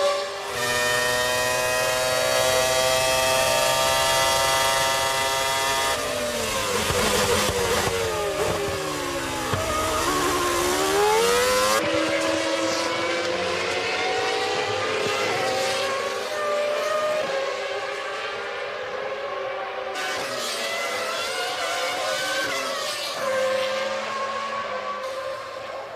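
1997 Formula One race car engines screaming at high revs. The pitch holds steady for a few seconds, then sweeps down and back up as cars brake, change gear and pass by. The sound changes abruptly a few times where the shots change.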